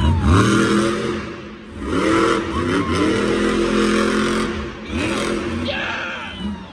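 Monster truck's supercharged V8 engine revving hard, its pitch climbing sharply about four times with short drops in between.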